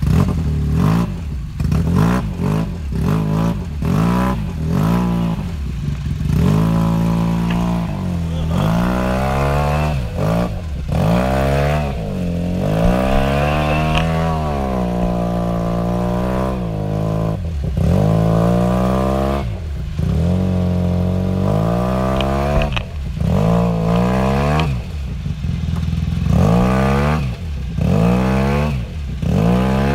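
Arctic Cat Wildcat Sport UTV's engine revving hard and falling back, again and again, as its tyres churn in deep mud trying to drive out of the hole.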